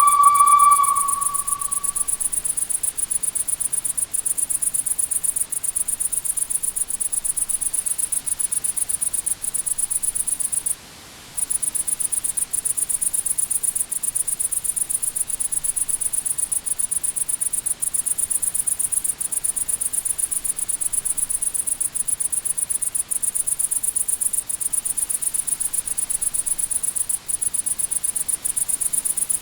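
Crickets chirping in a steady, high, unbroken trill, cutting out briefly about eleven seconds in. A steam locomotive whistle sounds one steady tone over the first two seconds and fades out.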